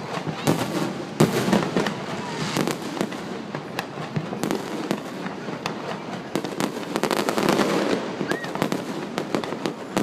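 Fireworks going off in a rapid, unbroken series of bangs and crackles, with the loudest bangs about a second in.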